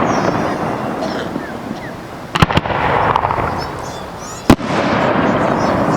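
Aerial fireworks bursting: a quick double bang about two and a half seconds in and a single sharp bang a couple of seconds later. Each bang is followed by a long rushing, crackling tail.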